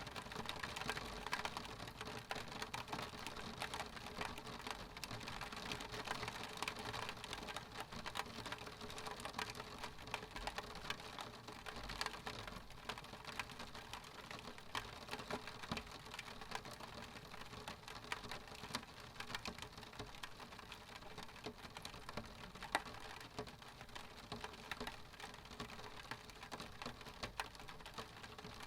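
Rain pattering on a window pane: a dense, irregular ticking of drops hitting the glass over a steady hiss of rain.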